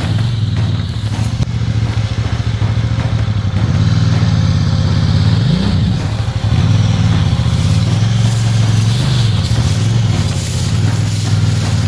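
KTM 990 Adventure motorcycle's V-twin engine running steadily, with a quick rev up and back down a little past halfway and another smaller dip in revs later on.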